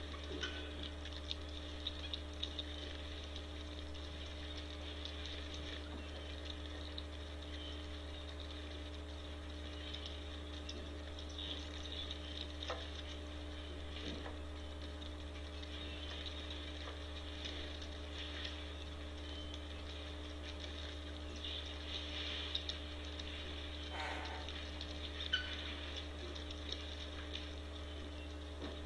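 Outdoor webcam ambience: a steady low electrical hum with faint, scattered ticks and patters over it.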